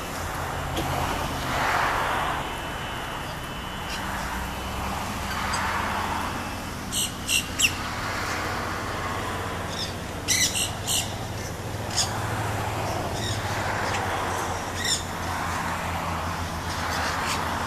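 Nanday parakeets (black-hooded parakeets) giving short, harsh squawks: a quick run of three about seven seconds in, another run of four about ten seconds in, then single calls near twelve and fifteen seconds and at the very end.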